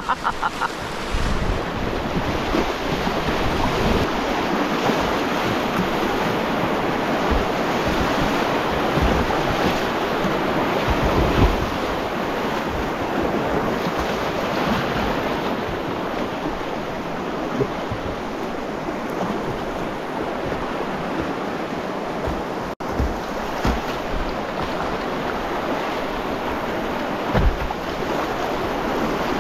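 Rushing whitewater river water, a steady continuous wash, with scattered low thumps of wind buffeting the microphone.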